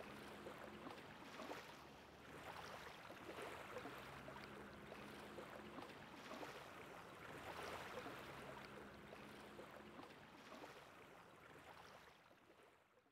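Faint water ambience: water lapping in slow swells every few seconds, with a faint low hum coming and going, fading out near the end.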